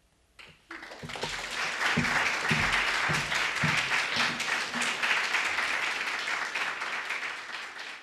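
Audience applauding: dense clapping starts about a second in, holds steady, and begins to fade near the end.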